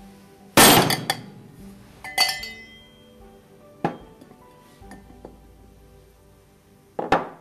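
Stainless-steel pump parts knocking and clinking against each other and a wooden workbench as they are set down and handled. There is a loud knock about half a second in, then a ringing metallic clink about two seconds in, then lighter taps, and another knock near the end.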